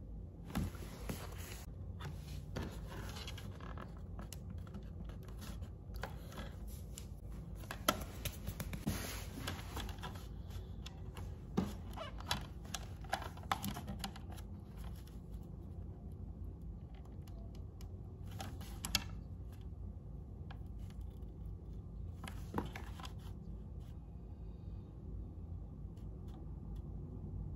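Hands handling paper sheets close to the microphone: scattered rustling, taps and clicks, busiest in the middle, over a low steady hum.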